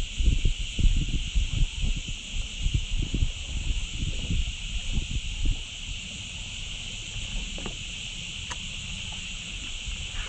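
Wind buffeting the microphone in low rumbling gusts, stopping about five and a half seconds in, over a steady high chorus of cicadas.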